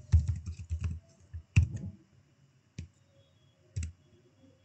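Computer keyboard typing: a quick run of keystrokes in the first second, then a few single clicks about a second apart.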